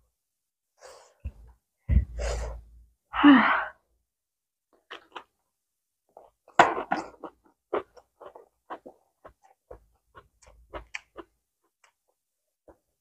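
Close-miked mouth sounds of eating a rice-noodle roll wrapped in lettuce and fresh herbs. There are a few loud, breathy mouth noises in the first few seconds, then a run of short, wet chewing clicks.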